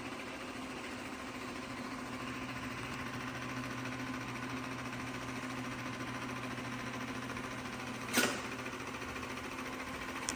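Shark PowerDetect robot vacuum running, a steady motor and suction hum, with one sharp knock about eight seconds in.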